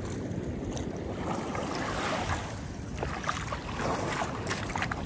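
Wind buffeting the microphone over lapping shallow water, with rustling, scraping and clicks from handling the fishing rod and reel from about three seconds in.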